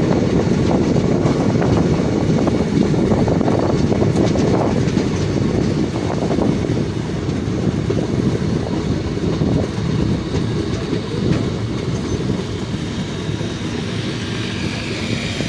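A passenger train running along the track, heard from on board with wind rushing past the microphone. The wheels clatter over the rail joints, and the noise eases off a little near the end.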